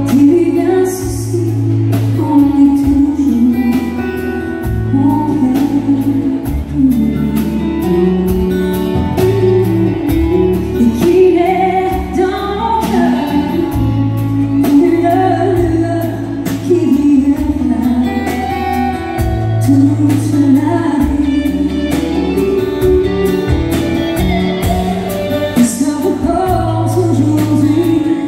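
A woman sings a country song live into a microphone, backed by a band of electric guitar, acoustic guitar, bass guitar and drums.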